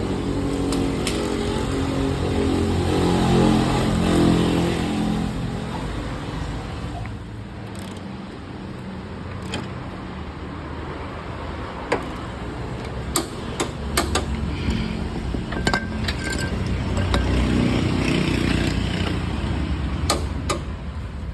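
Nissan Livina GT engine running, revved up for a few seconds and then dropping back to a lower, steadier run, with a number of sharp clicks or taps in the second half.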